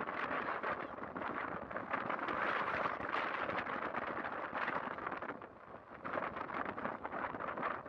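Strong wind of about 11 m/s gusting against the microphone, a rushing, crackling noise that eases for a moment about five and a half seconds in.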